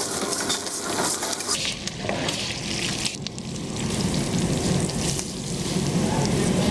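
Hot oil tempering of sesame seeds and curry leaves sizzling and crackling, first in an iron pan and then as it is poured over a tray of rolls.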